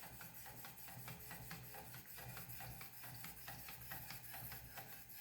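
Fine sharpening stone on a Wicked Edge guided sharpener stroking smoothly along a knife edge, with a quick run of light clicks from the safety shield tapping the stone stop.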